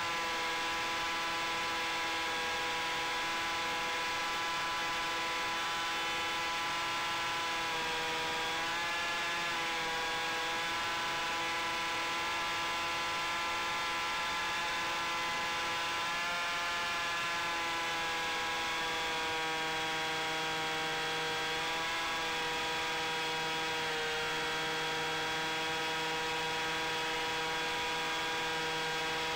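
Electric RC airplane's brushless motor spinning an 8x6 propeller at steady throttle: a steady buzzing whine whose pitch dips and shifts slightly a few times as the throttle changes.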